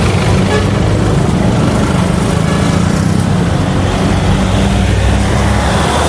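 Road traffic with a motor vehicle's engine running close by: a steady low hum over the noise of passing cars.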